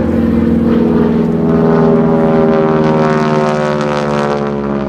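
North American T-6 Texan's Pratt & Whitney R-1340 nine-cylinder radial engine and propeller at power during aerobatics: a loud, steady drone that swells past the middle and then falls slightly in pitch toward the end.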